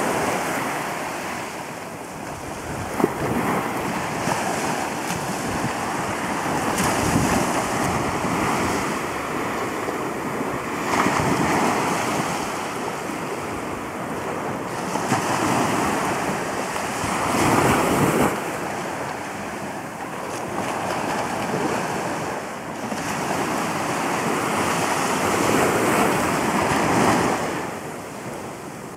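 Small waves washing up on a sandy beach, the surf swelling and fading every few seconds, with wind buffeting the microphone.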